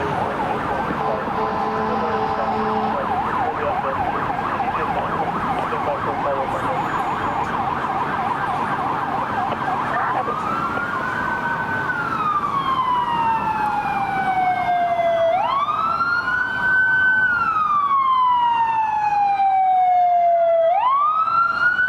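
Emergency vehicle sirens. For about the first ten seconds a siren sweeps fast up and down in pitch (a yelp); then it changes to a slow wail that rises, holds and falls, and in the second half a second siren wails out of step with it.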